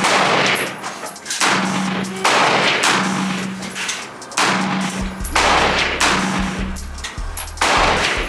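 AR-style pistol fired in slow single shots, about six shots roughly a second and a half apart, each ringing out briefly, with background music underneath.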